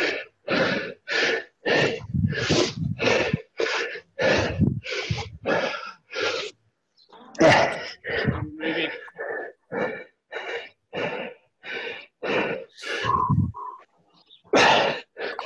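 A person panting hard, close to the microphone, with quick heavy breaths at about two a second that turn more ragged after a short pause partway through. This is someone out of breath from hard exercise.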